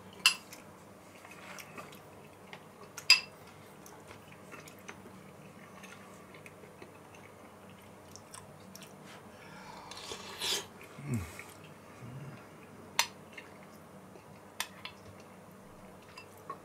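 Someone eating stew with a metal spoon from a ceramic bowl: the spoon clinks against the bowl a few times, loudest just after the start and about three seconds in, with quiet chewing in between. About eleven seconds in there is a short falling hum from the eater.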